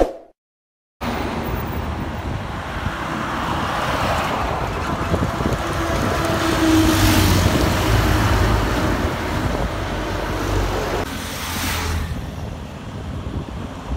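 A short click and a second of silence, then steady highway traffic noise from goods lorries driving past, growing louder about halfway through as one passes close, with wind on the microphone.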